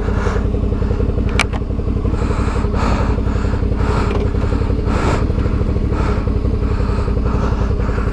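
Adventure motorcycle engine running steadily at a constant low speed, with a brief sharp click about a second and a half in.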